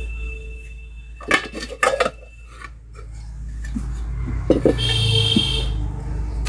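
Steel spoon scraping and knocking against a metal cooking pot while stirring a thick onion paste, with sharp clinks about a second and two seconds in. A louder metallic rattle of utensils follows about five seconds in.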